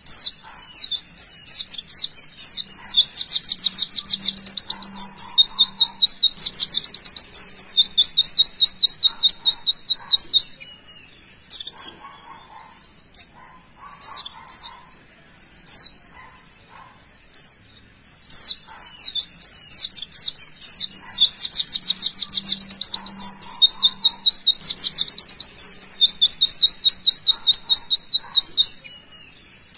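White-eye (pleci) singing its rapid 'tembakan' song: two long bouts of fast, high rattling trills of about ten notes a second, each lasting about ten seconds, with scattered short chirps between them.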